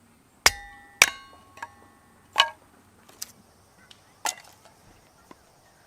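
A series of about seven sharp, irregular strikes, some loud. Several leave a short ringing tone, the ring of struck metal.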